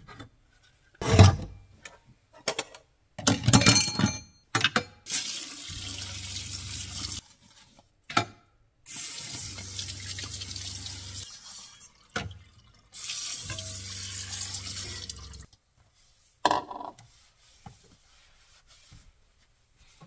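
Faucet water running into a small sink in three runs of about two seconds each as a plate is rinsed, with a low hum under each run. Before the water, dishes knock and clatter against the sink. A single knock comes near the end.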